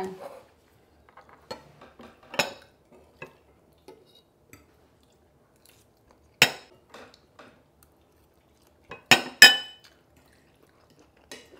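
Forks and spoons clinking and scraping against ceramic plates and bowls during a meal: scattered single clinks, one sharp strike about six seconds in and two louder ones close together near the end.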